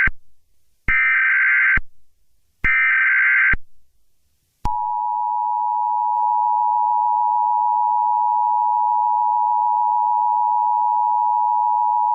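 Emergency Alert System header: the end of one burst of screeching data tones, then two more bursts about a second long with short gaps. About five seconds in, the EAS two-tone attention signal starts and holds steady, the alarm that announces an emergency message.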